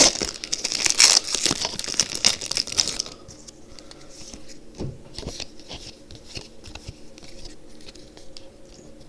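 Foil booster pack wrapper being torn open and crinkled for about three seconds. It then drops to much quieter scattered rustles and light clicks as the cards are handled.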